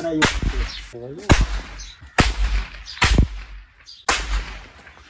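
Firecrackers going off one after another: five sharp bangs about a second apart, each with a short tail, and a voice calling out near the start.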